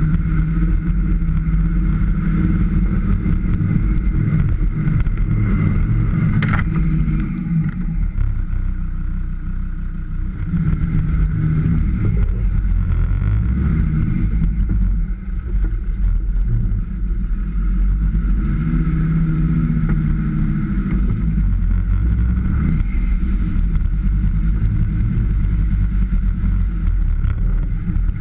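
Off-road vehicle engine running under load, its pitch rising and falling again and again as it revs up and eases off over rough ground, with a single sharp knock partway through.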